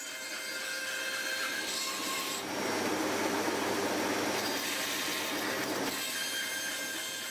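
Bandsaw running and cutting through a pine board, with a steady motor whine throughout. The cutting noise swells from about two and a half seconds in and eases off again around six seconds.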